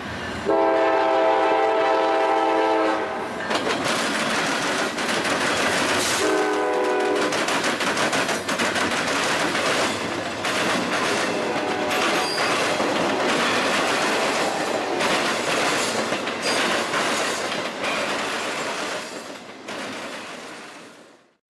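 Norfolk Southern GE CW40-9 (Dash 9-40CW) diesel locomotive's air horn sounding a chord, one long blast and then a short one. Intermodal freight cars follow, rolling past close by with a steady rumble and clickety-clack of wheels over rail joints, which cuts off suddenly near the end.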